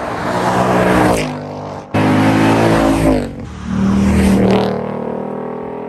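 Ford Mustang Mach 1's 5.0-litre V8 accelerating hard past, the engine note climbing, dipping and climbing again. It breaks off abruptly just before two seconds in, and a second full-throttle run follows, its note falling away and fading near the end.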